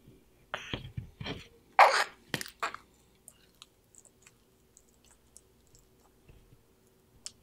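Sulcata tortoise biting and chewing strawberries and leafy greens: a run of crunching bites in the first three seconds, the loudest about two seconds in, then only faint, scattered clicks of chewing.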